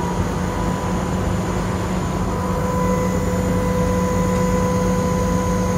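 Fire engine's diesel engine running its fire pump at pumping RPM: a steady engine drone with a steady pump whine, a little louder about halfway through.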